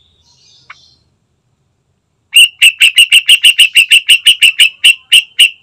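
Yellow-vented bulbul calling: a fast run of about twenty loud, sharp, identical notes, around six a second, starting about two seconds in and spacing out slightly near the end.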